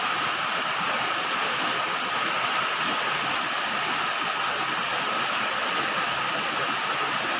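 Steady rain falling on a galvalume sheet-steel roof: a dense, unbroken patter of drops on the metal, with a faint steady tone running underneath.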